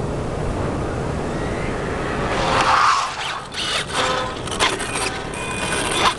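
Steady low rumble, then a brushless electric RC car (Traxxas Slash 4x4 with a Castle 2200kv sensored motor) running on asphalt: a brief motor whine and tyre noise that are loudest about three seconds in, followed by sharp clicks and short whines as it comes close, with a last loud peak near the end.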